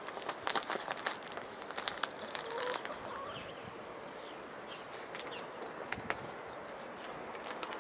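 Hens pecking at mash in a metal bowl: a scatter of sharp beak taps, bunched in the first three seconds and again around five to six seconds in, with a faint short rising call near three seconds in.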